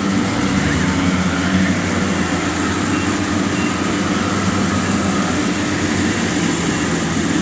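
Kubota DC-70 combine harvester's diesel engine running steadily as the machine drives through the rice: a constant, even drone that holds its pitch.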